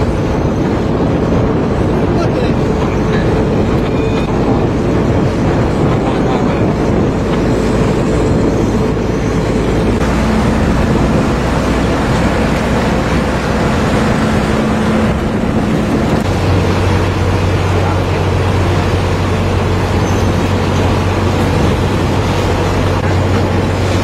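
Steady boat-engine drone mixed with wind and water noise. The hum's pitch changes abruptly about ten and about sixteen seconds in.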